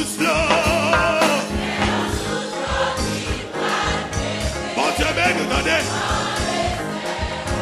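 Gospel worship song: voices singing together over a band with a steady beat.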